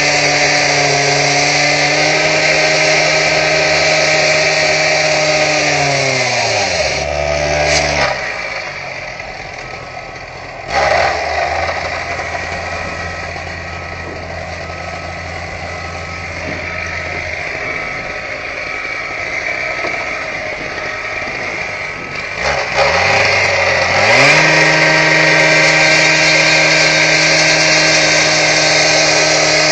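Handheld power saw with a masonry blade cutting into a brick wall, running at full speed. It winds down to a stop after about six seconds. After a quieter stretch with a low hum, it spins back up and runs steadily again, starting to wind down right at the end.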